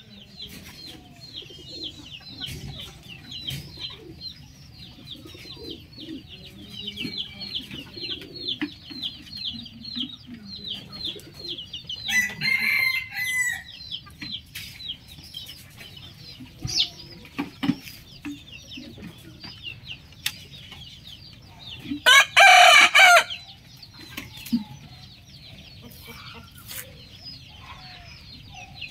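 A rooster crows once, loudly, about two-thirds of the way through, a call of a second or so broken into several parts. A quieter, shorter call comes near the middle.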